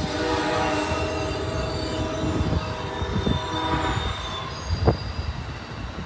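Amtrak Superliner bilevel passenger cars rolling past on the track, with a steady rumble and several steady ringing tones that fade out about four seconds in. A sharp knock stands out about five seconds in.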